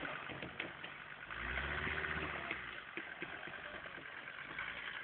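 Off-road 4x4's engine running at low speed. Its rumble swells about a second and a half in, then eases off.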